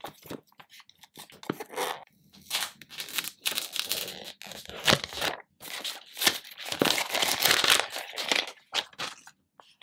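Clear plastic wrap being torn and peeled off a phone box, crinkling and crackling in irregular bursts, loudest in the second half.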